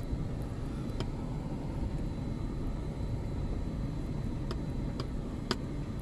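Car driving along a dirt road, heard from inside the cabin: a steady low rumble of engine and tyres, with a few light clicks about a second in and again near the end.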